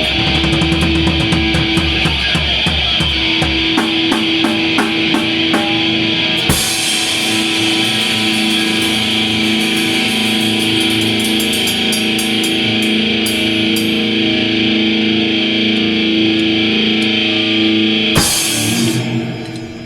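Heavy metal music: a distorted electric guitar with a drum kit. A chord is held and left ringing through most of the passage, under steady drum and cymbal hits. There is a crash about six seconds in, a final hit near the end, and then the sound dies away.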